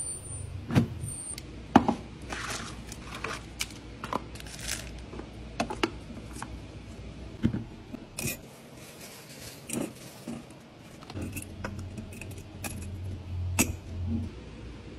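Glass storage jars being handled on a table: scattered clicks, taps and clinks, with the metal wire clasp of a clip-top jar clicking.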